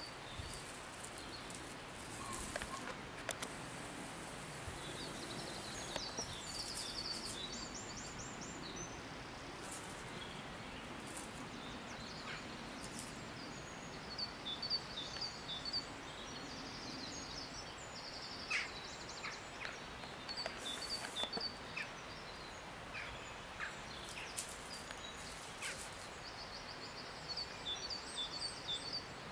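Songbirds singing in woodland: several bouts of quick trills and runs of short, high repeated notes, over a steady outdoor hiss, with a few short clicks and rustles.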